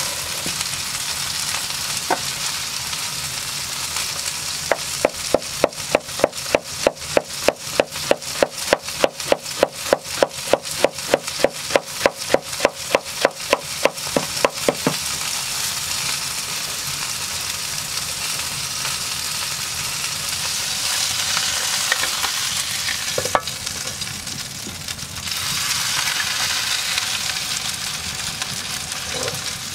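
A wide-bladed knife shredding a head of iceberg lettuce on a wooden board: a fast, even run of crisp cuts, about four a second, starting about five seconds in and stopping about ten seconds later, over a steady sizzle. Near the end a beef patty sizzles louder in a cast iron pan.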